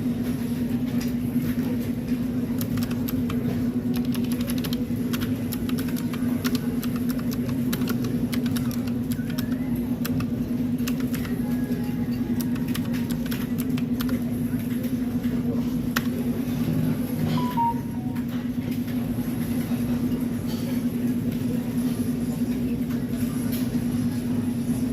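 Light, irregular clicks of computer keyboard typing, heaviest in the first half, over a steady low hum.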